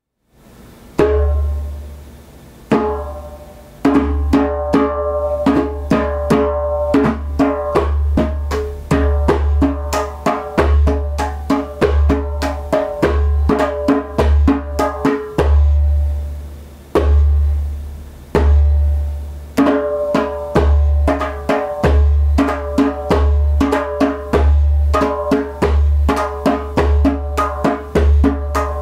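Djembe played by hand: a few single strokes, then a fast steady rhythm that mixes deep booming bass strokes with sharper, higher-ringing strokes. About halfway through the rhythm breaks off into a few single deep strokes, then picks up again.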